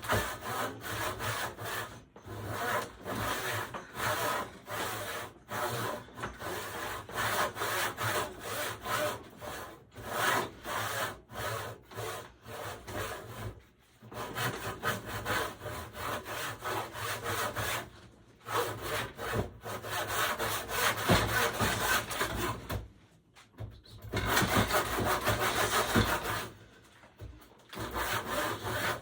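Hand saw cutting through wood in quick back-and-forth rasping strokes, stopping briefly a few times before carrying on.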